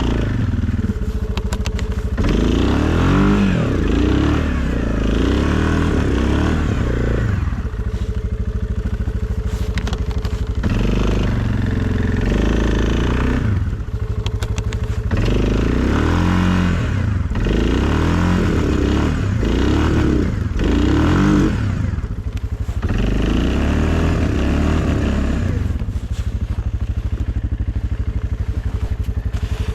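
Suzuki KingQuad ATV's single-cylinder engine running under load while plowing snow, revving up and easing off in repeated surges with steadier stretches between.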